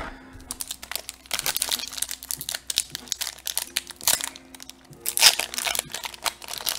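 Foil wrapper of a Magic: The Gathering Commander Legends draft booster pack crinkling as it is handled, in crackly bursts, the loudest about a second in and again a little after five seconds, over soft background music.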